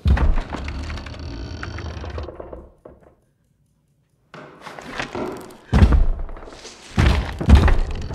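Heavy low thuds. A sudden hard thud at the start is followed by a deep rumble that fades out after about two seconds. After a silent pause, several more heavy thuds come near the end, the loudest in the last second.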